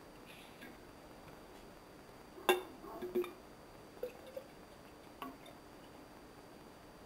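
A few light knocks and clinks from a glass graduated cylinder and a tin can being handled, the sharpest about two and a half seconds in, with smaller ones over the next few seconds.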